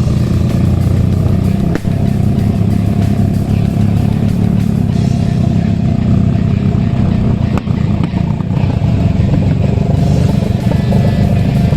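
Kawasaki Eliminator motorcycle engine running steadily while being ridden, alongside music, with a couple of brief knocks.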